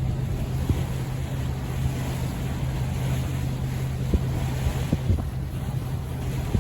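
Tour boat under way: its engine drones steadily and low beneath water noise, with wind buffeting the microphone in occasional thumps.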